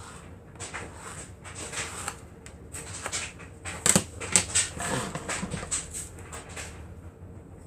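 Clicks, taps and rustles from handling small craft materials on a work surface, with a louder cluster of knocks about four seconds in.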